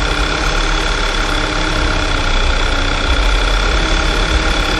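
Volkswagen Tiguan engine running in drive at a standstill with a knocking, wavering noise that sounds as if it were inside the engine. The noise comes from a broken tensioner on the poly-V accessory belt.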